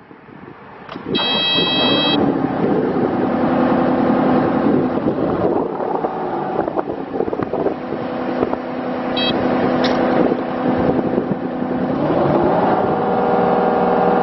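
Kubota U35-4 mini excavator's diesel engine coming to life about a second in with a short electronic beep, then running steadily. Its engine speed rises near the end.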